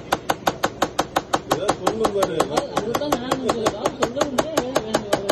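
Rapid, even chopping: a flat metal scraper blade slicing a banana into rounds and tapping the steel counter about six or seven times a second.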